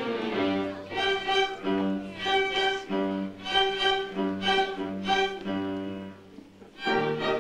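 Bowed strings, violin and cello, playing a slow melody in notes about a second long. The music drops away briefly about six seconds in, then a fuller chord comes in near the end.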